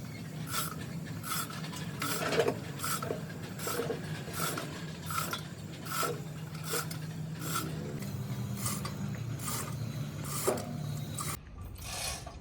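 Repeated rasping strokes of hand filing on a workpiece, about one every three-quarters of a second, over a steady low hum that stops near the end.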